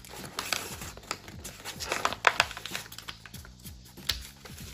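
A4 paper being folded and creased flat by hand: a run of crisp crackles and rustles, loudest about two seconds in, with faint background music underneath.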